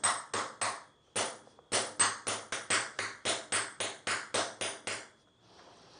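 Small hammer striking a homemade steel pattern punch into timber: quick, light, ringing taps about three to four a second, with a short pause near the first second, stopping about five seconds in. The punch bounces back off the wood between blows, stamping a mottled texture into the surface.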